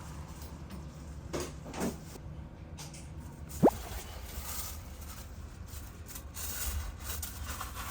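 A few light knocks and one short, sharp squeak of handling, over a low steady hum.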